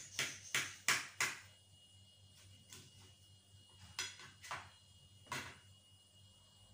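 Metal knife blade knocking against the bottom of a glass baking dish while slicing through a baked apple pie: four sharp clicks in quick succession in the first second and a half, then three more spaced out a few seconds later.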